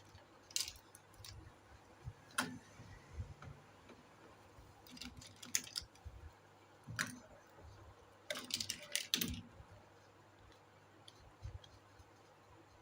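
Small plastic toy kitchen pieces being handled and set down: scattered light clicks and taps, with a quick flurry of clicks about eight to nine seconds in.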